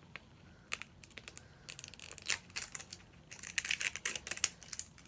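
Hands working at a hard-to-open plastic Mini Brands capsule ball: a series of sharp plastic clicks and crinkling, with the loudest click a little over two seconds in and a dense run of crinkling around four seconds.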